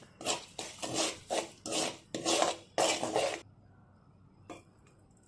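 Metal spoon scraping around a kadai while stirring a thick tamarind-and-oil paste, in quick rasping strokes about two or three a second. The stirring stops about three and a half seconds in.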